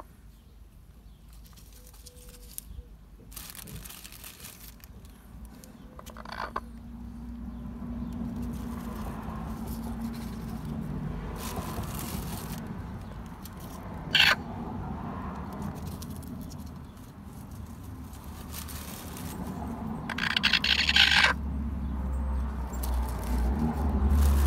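A broody hen making low, continuous vocal sounds while she scrapes eggs back under herself through dry leaves. Several brief scratchy rustles of the leaves break in, the loudest a little before the end, along with a single sharp click about two-thirds of the way through and a low rumble in the last few seconds.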